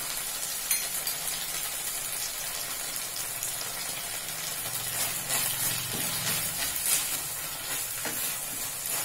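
Sliced onions and green capsicum sizzling in hot oil in a stainless steel kadai, stirred and scraped with a wooden spatula, with a few sharp clicks of the spatula against the pan.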